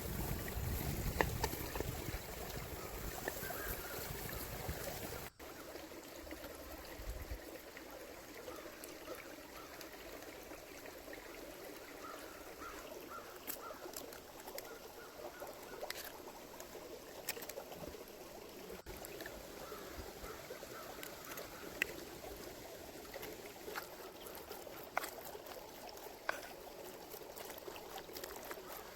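River water trickling and flowing steadily. A heavier low rumble over the first five seconds cuts off abruptly, leaving the quieter trickle with a few light clicks.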